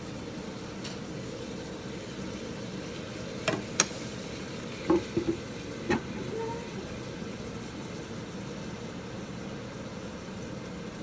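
Bacon sizzling steadily in a wok under a wooden lid. Between about three and a half and six seconds in come a few sharp knocks and clunks as the wooden lid is handled on the wok.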